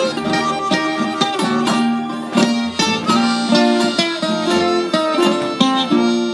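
Live country band playing an instrumental break without singing: a picked guitar lead plays the melody over bass and rhythm backing.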